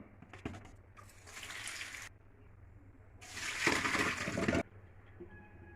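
Water running or being poured in a kitchen, in two short spells: a brief faint one about a second in, then a louder one of about a second and a half past the middle. A few light clicks come just before.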